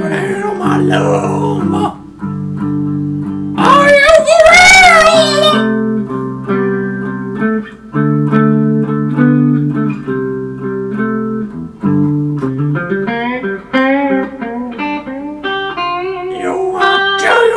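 Electric guitar playing sustained chords and single-note lines. About four seconds in, a voice holds a loud wavering note for under two seconds.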